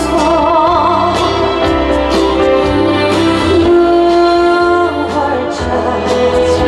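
A female singer singing a ballad live with band backing, holding notes with vibrato over steady bass.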